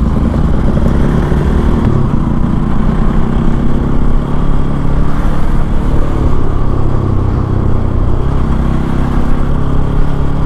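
Bajaj Pulsar NS200's single-cylinder engine running steadily while the motorcycle is ridden, its pitch holding fairly even.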